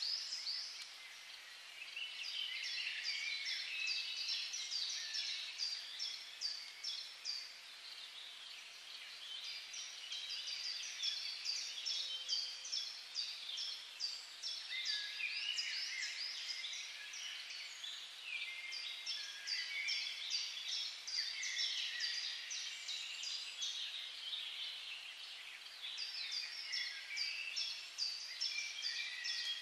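A busy chorus of small birds chirping and twittering, high-pitched and near-continuous, thinning briefly a few times.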